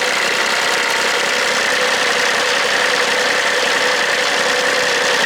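Kubota D1105 three-cylinder diesel engine of a ride-on vacuum sweeper running steadily, with a steady high whine over the engine sound. The engine has just been revived, fed by an electric fuel pump that bypasses its mechanical pump.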